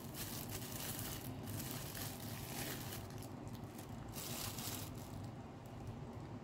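Plastic packaging wrap crinkling and rustling as a small item is unwrapped by hand, dying down about five seconds in.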